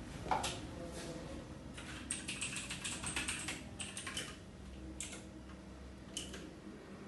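Irregular light clicks and taps, with a knock just after the start and a quick, dense run of clicks about two to four seconds in.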